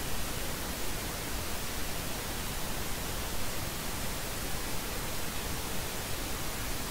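Steady hiss of background noise with no distinct events in it.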